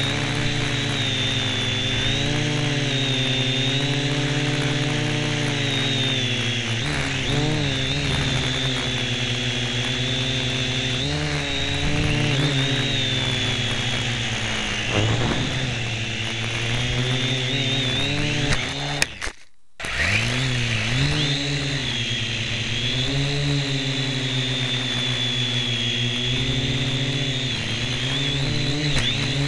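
Syma X1 quadcopter's small motors and propellers whining, heard from the keychain camera strapped on top of it. The pitch wavers up and down as the throttle changes. The sound cuts out for about half a second around two-thirds of the way through, then returns.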